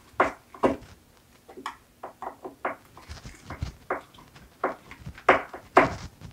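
Hand screwdriver driving a wood screw into a wooden spar glue-up: short, irregular squeaks and creaks as the screw turns in the wood, with the loudest pair a little past five seconds in.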